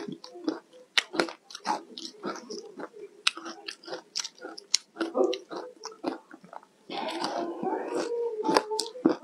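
A person biting and chewing crushed frozen ice off a spoon: a quick, irregular run of sharp crunches. Near the end the crunching thickens into a continuous stretch of about two seconds.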